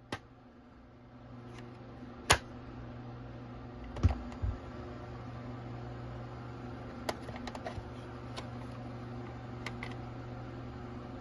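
A Radio Shack CTP-92 portable cassette player, running on a new drive belt, is switched on with a click. Its motor and tape transport then run with a steady low hum and faint hiss, and a few sharp clicks and knocks fall on top, the loudest about two seconds in and a cluster around four seconds.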